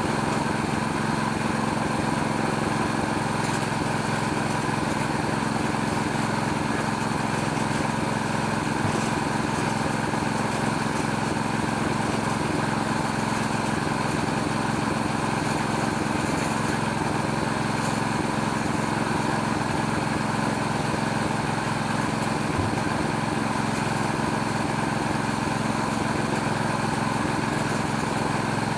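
Small Chinese Robin-brand petrol engine running at a steady speed, driving a homemade oil palm fruit-loosening machine.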